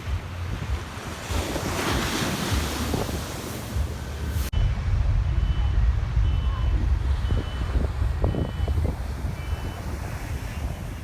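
Wind buffeting the phone's microphone as a strong low rumble, over the wash of sea surf. The sound breaks off abruptly about four and a half seconds in and resumes.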